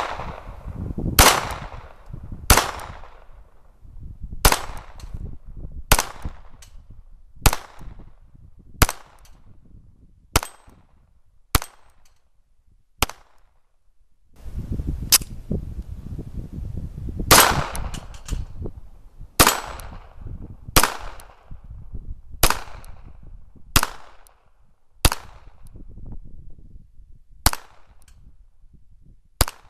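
Ruger SR22 .22 LR pistol firing tracer rounds in a string of about eighteen single shots, roughly one to two seconds apart, with a pause of about four seconds midway. Each round cycles the semi-automatic action in a cycle test.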